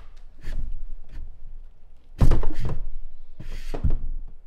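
Dull thunks and knocks, the loudest about two seconds in, as a 4-gauge power wire is pulled through the rubber firewall grommet of a car.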